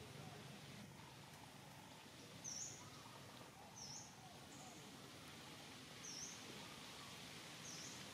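Faint outdoor ambience with a small bird giving four short, high chirps, about one every second and a half.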